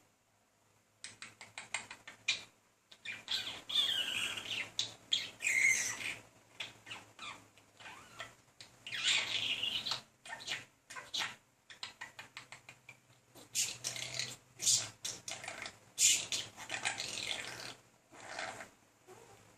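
Budgerigar chattering and warbling: rapid runs of clicks and chirps mixed with gliding warbled notes, in bursts with short pauses.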